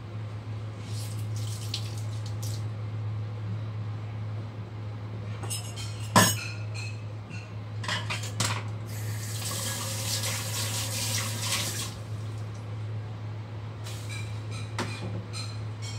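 Washing up at a kitchen sink: things clatter and knock against the basin, with one sharp knock about six seconds in, then the tap runs for about three seconds, and a few more clinks come near the end. A steady low hum sits underneath.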